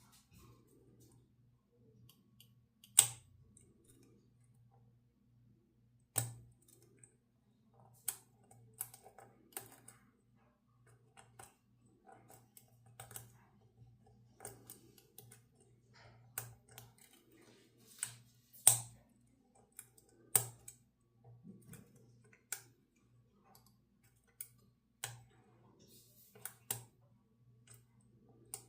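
Lock picking: a metal pick and tension wrench clicking against the pins of a pin tumbler lock. The clicks are sharp and irregular, about one every second or two, a few of them louder.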